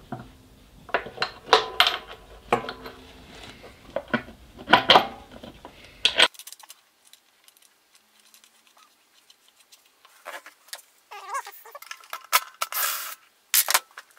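Small metal parts clinking and knocking as a small shock absorber is fitted to a steel bracket by hand. There is a run of sharp clinks over the first six seconds, then, after a pause, sparser clicks and rattles near the end.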